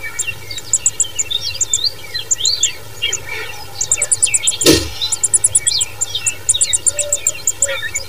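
Loten's sunbird chicks begging at the nest: rapid runs of very high, thin cheeps mixed with quick swooping chirps, with a single sharp click about halfway through.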